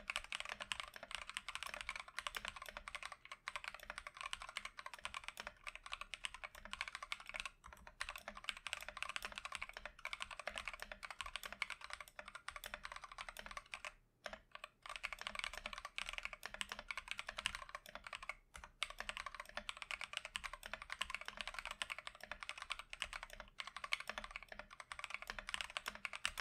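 Fast, continuous typing on a mechanical keyboard fitted with Akko CS Matcha Green 50 g linear switches: a dense run of key clacks, pausing briefly a few times.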